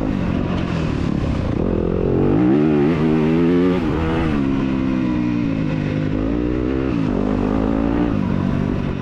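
2021 Yamaha YZ250FX's 250cc four-stroke single-cylinder engine under race throttle, its pitch rising and falling several times as the rider gets on and off the gas.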